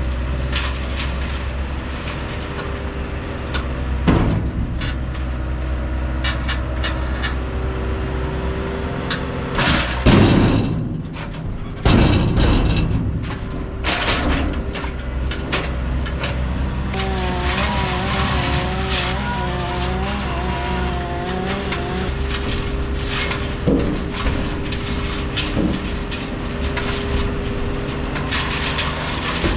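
Skid steer's diesel engine running steadily under work, with sharp clunks and knocks as logs are grabbed and loaded, and a wavering whine for several seconds about halfway through.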